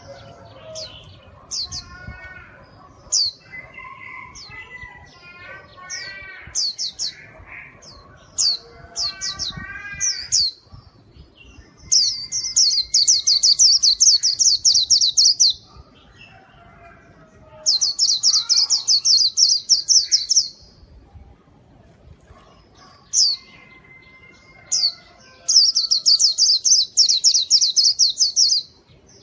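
White-eye (pleci) singing: scattered sharp, high chirps over lower warbling notes, then three bursts of a very fast, high trill of about three seconds each.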